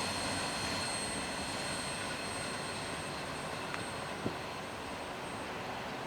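Steady rumble of a slow-moving CSX freight train rolling through, slowly fading, with a couple of faint clicks past the middle.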